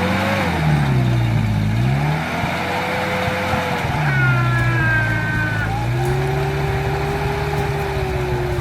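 A vehicle engine revving up and falling back several times, then holding a steadier pitch in the second half. A brief high-pitched tone sounds over it about four seconds in.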